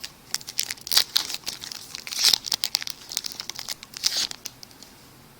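Baseball card pack wrapper being torn open and crinkled, a run of crackling bursts that dies away about four and a half seconds in.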